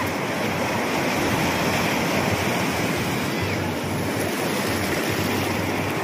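Ocean surf breaking and washing up the beach: a steady, unbroken rush of waves.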